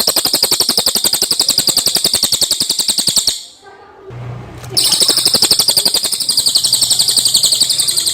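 Cililin (pygmy tit) singing a fast, high trill of rapidly repeated notes, about thirteen a second. The trill breaks off a little past three seconds in, and a second long trill starts about a second and a half later.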